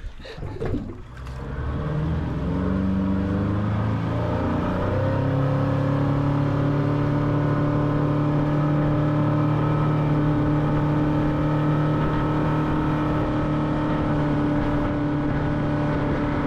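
Outboard motor driving a boat at speed. Its pitch climbs over the first few seconds as it speeds up, then holds at a steady cruising drone.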